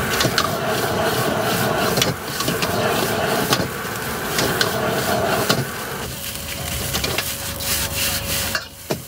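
Metal cooking utensils scraping, rubbing and clattering in a wok at a street-food stall, with many quick knocks.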